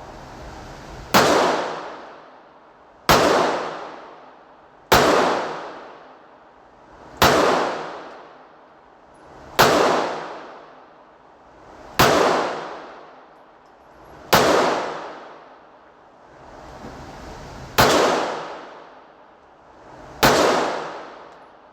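Nine single pistol shots from a 9mm Canik Mete MC9 Prime, fired slowly about two to two and a half seconds apart, each followed by an echo that dies away.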